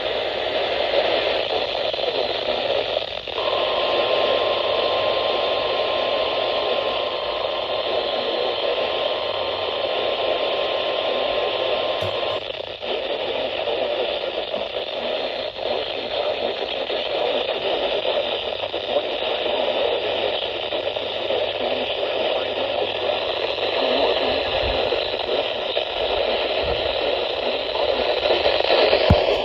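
Weather radio receiver hissing with steady static, the broadcast signal barely coming in. A faint steady tone sits under the static for about eight seconds, a few seconds in.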